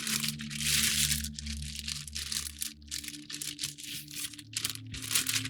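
Rustling and crinkling of things being handled on a work table, most continuous in the first couple of seconds and picking up again near the end, over a steady low hum.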